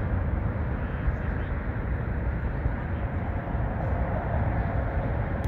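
Steady rumble of road traffic, a dense low noise with no distinct events.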